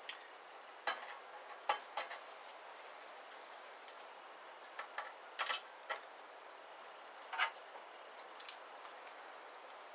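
Scattered small metal clicks and taps as an Allen key and the hand tool work the bandsaw's upper blade guide blocks and their set screws, a few irregular ticks several seconds apart.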